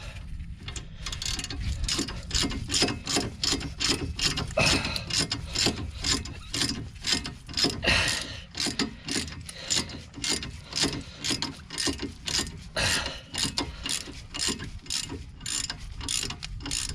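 Steady, rhythmic metallic clicking, about three clicks a second, as a seized front brake caliper guide pin on a 2012 Fiat 500 is worked in and out of its bore to free it.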